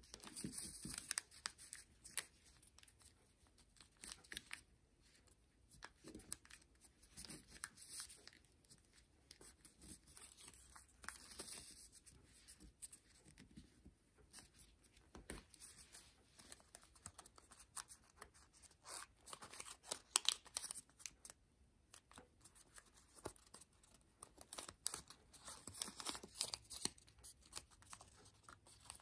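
Origami paper being folded and creased by hand: faint, irregular rustling and scratching as fingers press and run along the folds, with a louder crinkle about twenty seconds in.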